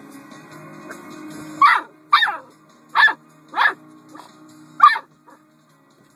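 Puppy giving five short, high barks, about half a second to a second apart.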